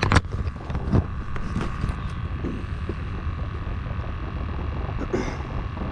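Two sharp knocks of a hand handling the camera, right at the start and again about a second in, over a steady low rumble with a faint steady hum.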